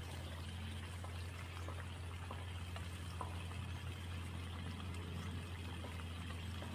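Faint pouring and sloshing of liquid as a pesticide spray mix is made up, with a few light clicks, over a steady low hum.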